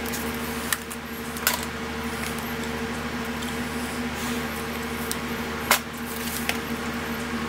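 A steady electrical-sounding hum under a few light clicks and rustles from plastic safety goggles and a dust mask being handled close to the microphone; one sharper click comes a little under six seconds in.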